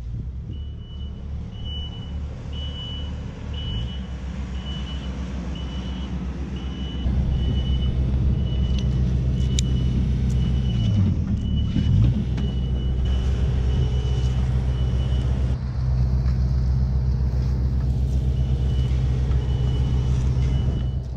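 Mini excavator's diesel engine running, stepping up to higher revs about seven seconds in, with a high warning beep repeating roughly every 0.6 s that stops for a few seconds near the end and then starts again. A couple of sharp clinks come around the middle.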